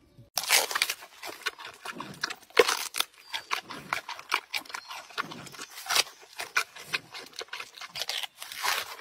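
Giant panda biting and chewing a bamboo shoot: a quick run of loud, irregular crunches, cracks and fibrous tearing that starts suddenly about half a second in.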